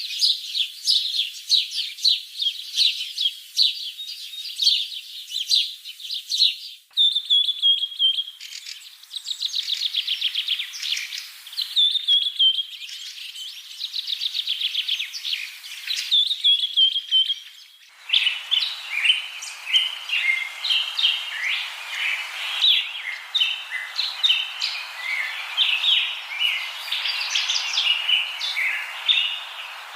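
Mynas calling and chattering: quick runs of sharp repeated notes and whistles, with a steady background hiss from about eighteen seconds in.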